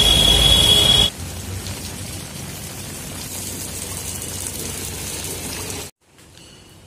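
A high steady tone over loud street noise cuts off about a second in. Then heavy rain falls steadily on a flooded pavement, and near the end it gives way to quiet indoor room tone.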